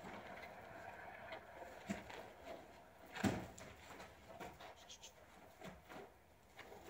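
Faint, irregular thuds and scuffs of a young horse's hooves shifting and stepping on a packed dirt floor as it is handled, the loudest a single knock about three seconds in.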